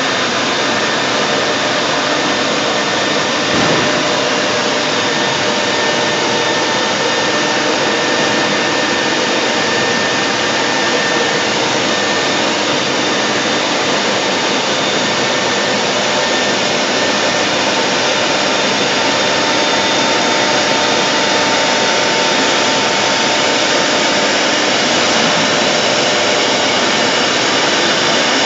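CNC router spindle running at speed with its bit cutting a door-panel profile into a wooden board: a steady, loud whine and cutting hiss, with a few thin steady tones. A brief knock comes about three and a half seconds in.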